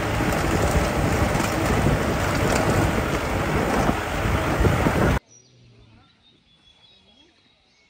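Car driving over a rough stony forest road, with strong wind rushing over the microphone and a heavy low rumble. It cuts off suddenly about five seconds in to a faint outdoor background.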